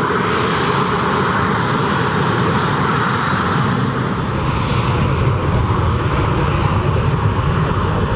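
Fixed-wing airliner's engines running loud and steady as it moves on the airfield.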